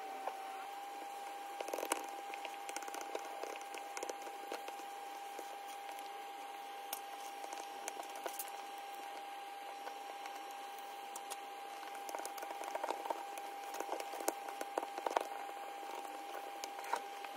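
Light crinkles, taps and clicks of plastic screen-protector film, sticker tabs and a card being handled on a tablet's glass screen, scattered irregularly and busiest about two seconds in and again near the end. Under them runs a steady faint hiss with a thin constant high tone.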